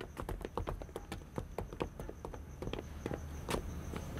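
Footsteps of several people in hard-soled shoes walking across a hard floor: an uneven run of quick clicks that thins out after about two seconds.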